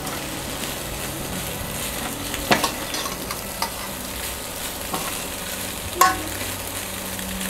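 Elbow macaroni and vegetables sizzling in a hot stainless steel pan as they are stirred with a perforated steel ladle. The ladle taps sharply against the pan a few times, clearest about two and a half seconds in and again at six seconds.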